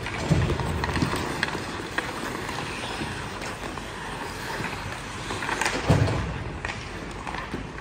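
Ice hockey play: skate blades scraping on the ice, with sticks and puck clicking now and then. There are two low thumps, one about half a second in and one about six seconds in.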